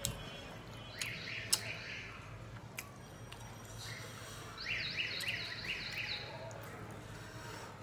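Two quick runs of short, high chirps, like a small bird calling, a few calls about a second in and a longer run near the middle. Over them come a few soft clicks from hands tearing a thin rice-flour pancake and dipping it into curry.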